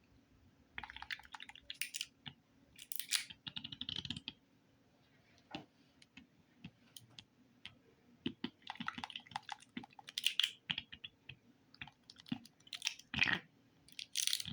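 Slime being squeezed and poked by hand, giving several bursts of small clicks and crackles with short quiet gaps between them.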